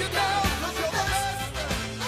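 Pop-rock song with a sung melody over bass and a drum beat of about two hits a second, slowly getting quieter.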